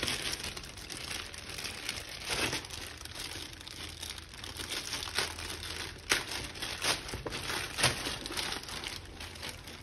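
Clear plastic packaging bag crinkling and rustling as hands work a carrying case out of it, with several sharper crackles along the way.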